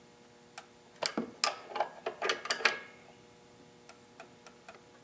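Small metallic clicks and taps of a feeler gauge and open-end wrench against the rocker arm and jam nut of a Kohler Courage XT engine's valve train as the valve clearance is rechecked. A cluster of sharp clicks comes about a second in, and lighter ticks follow near the end.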